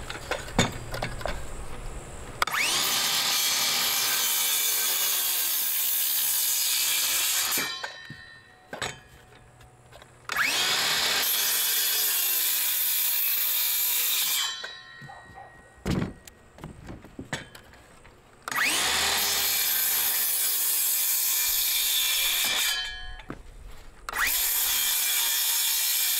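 Cordless circular saw cutting wooden roof purlin boards four times. Each cut starts with a rising whine as the blade spins up and winds down afterwards, with knocks of wood between the cuts.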